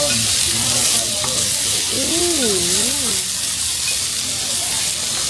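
Beef pepper rice with corn frying on a hot iron plate: a steady sizzling hiss, with a metal spoon stirring and scraping the rice and meat across the plate.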